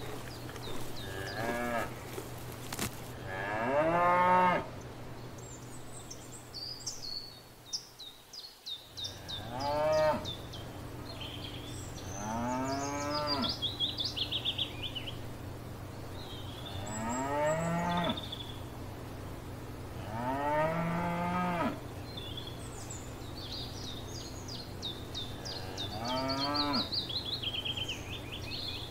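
A cow mooing repeatedly, about six long moos spaced through the stretch, each rising and then falling in pitch. Songbirds trill in the background between and over the moos.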